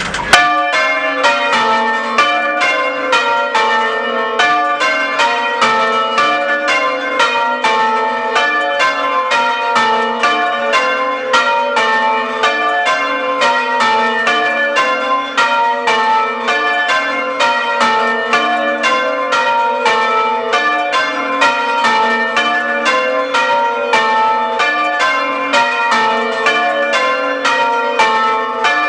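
Church tower bells rung open, without muffles, heard close up: an unbroken, evenly paced stream of strokes, several a second, in the running pattern of English change ringing, each stroke ringing on into the next.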